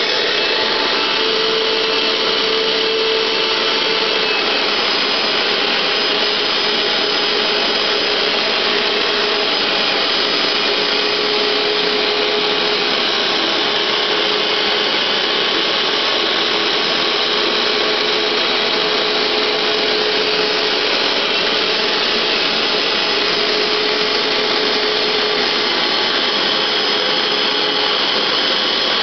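Hoover SteamVac Gold 12-amp SpinScrub carpet cleaner running steadily while cleaning carpet, its motor making a continuous rushing whir with a faint whistling tone that comes and goes.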